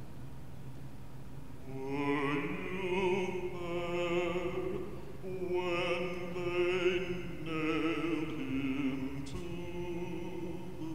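Slow singing with vibrato: four drawn-out sung phrases with short breaks between them, over soft, steady low sustained tones.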